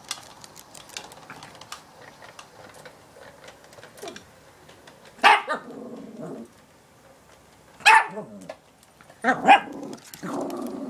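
Chihuahua barking in short, sharp yaps: one about halfway through, another a few seconds later, then two in quick succession near the end, over faint light clicking.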